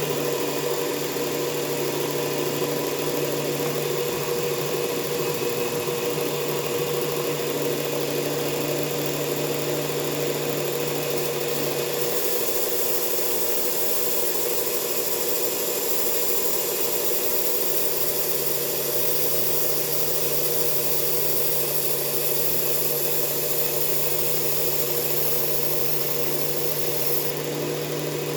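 Belt sander with a coarse belt running steadily while a Ka-Bar tanto blade is ground on it to raise a burr. The hiss grows brighter from about twelve seconds in and drops back near the end.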